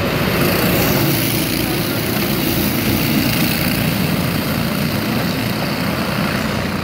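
A pack of racing go-kart engines running together at full throttle as the field drives through the corners on the opening lap after a race start.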